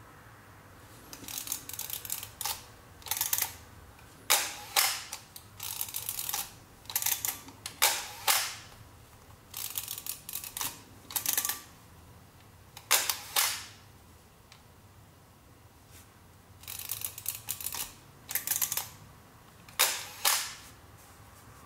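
Kiev-19 35mm SLR worked by hand: its shutter is fired with a sharp clack and the film advance lever wound to re-cock it, over and over. The sound comes as clusters of sharp clicks and short ratcheting every second or two, with a few brief pauses.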